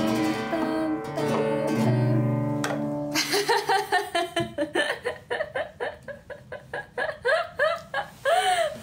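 Acoustic guitar plucked, a few notes ringing out for about three seconds. Then a woman laughs, short rapid pulses that go on to the end.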